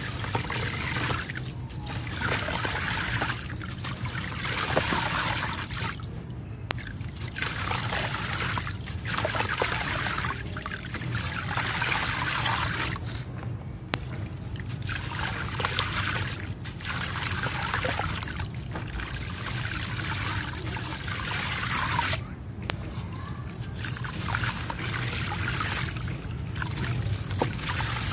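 A gritty sand-cement block crumbling between the hands, its sand pouring and pattering into a basin of water. It comes in repeated runs of a few seconds with short breaks between them.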